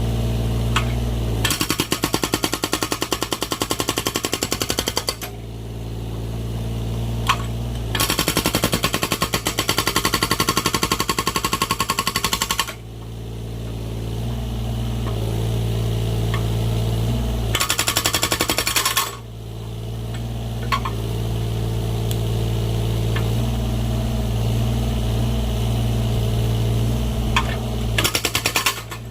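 Excavator-mounted hydraulic breaker hammering in four bursts, splitting firewood, the longest running several seconds and the last very short. Between the bursts the excavator's diesel engine runs steadily, with a few single sharp knocks.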